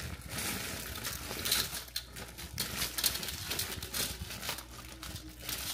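Plastic bag of frozen cut okra crinkling irregularly as it is handled and tipped, pouring the frozen pieces into a plastic infuser tube.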